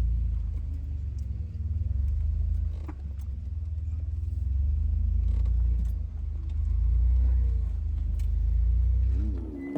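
An off-road vehicle's engine running, heard as a deep, steady low rumble that swells and eases, with a few light clicks and rattles.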